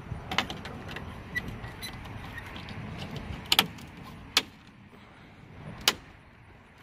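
Sharp plastic clicks and taps as a new Chevy bowtie emblem is pressed and seated into the chrome grille of a 2019 Silverado. The loudest are a quick pair about halfway through and a single click near the end.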